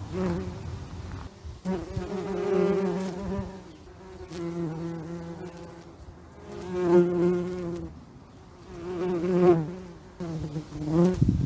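Bees buzzing in flight, a steady droning hum that swells and fades several times as they fly close past and away again.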